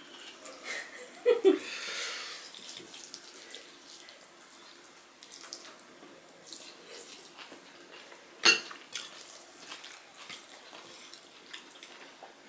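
Close-up eating sounds: fingers squishing and mixing rice with curry on plates, along with chewing and lip smacking, heard as a soft wet crackle with scattered small clicks. One sharp, louder click comes about eight and a half seconds in.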